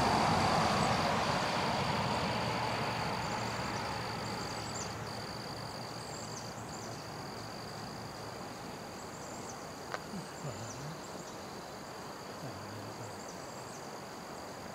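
A car passing on the road, its noise fading away over the first few seconds, then a steady high-pitched insect drone with short high chirps above it and a single click about ten seconds in.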